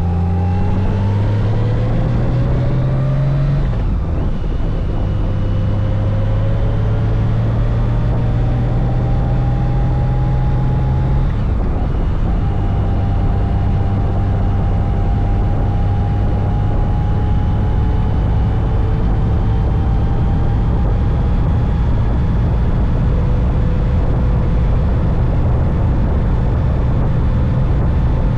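Honda Gold Wing motorcycle engine under way, heard from on the bike, over steady wind and road noise. The engine pitch climbs and then drops twice, about four seconds in and again near the middle, as the rider accelerates and shifts up, then holds a steady cruise.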